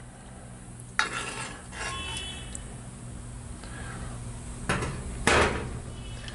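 Metal serving spoon scraping and clinking against the Dutch oven and a ceramic plate while sauce is spooned over vegetables. There is a sharp clink about a second in and a louder clatter near the end.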